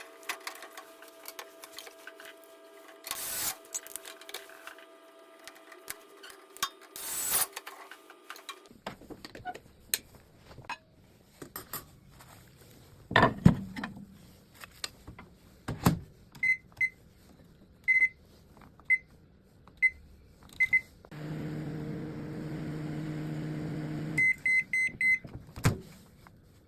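Samsung microwave being operated after a fan motor replacement: handling clicks and single keypad beeps, then the oven runs with a steady low hum for about three seconds. It stops with a quick run of beeps, followed by a clunk. The first nine seconds hold a steady multi-tone hum with a few knocks.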